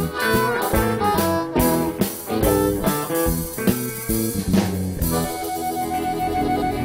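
Live blues band playing: amplified harmonica over drum kit, electric bass and keyboard. The drum strikes stop about five seconds in, leaving held chords.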